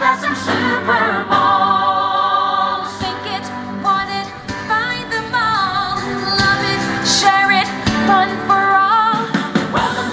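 Music with a singing voice: a sung melody with vibrato over instrumental backing, at a steady level.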